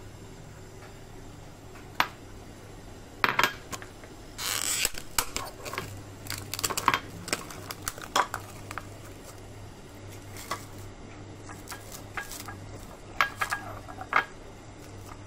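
Scattered clinks and knocks of porcelain bowls being handled on a stone counter, with a brief rustle about four and a half seconds in, over a steady low hum.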